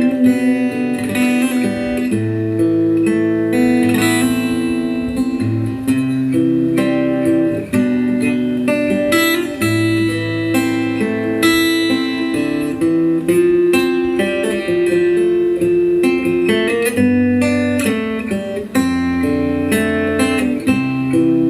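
Instrumental break of a Thai song: a plucked guitar melody over a steady bass line, with no singing.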